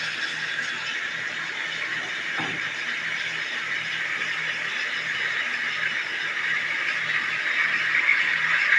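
Coffee machine hissing steadily, growing louder near the end, with a faint low hum beneath and a single soft knock about two and a half seconds in.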